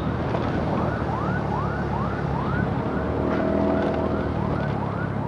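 Emergency siren, from the ambulance being escorted, sounding a fast repeating rising whoop about twice a second, with a steady held tone joining in the middle. It is heard over the motorcycle's engine and wind noise while riding.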